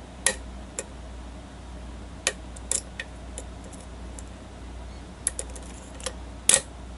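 Irregular sharp metallic clicks of a lock pick and tension wrench working the pins of a pin-tumbler challenge lock, with the lock held in a false set. The loudest click comes near the end.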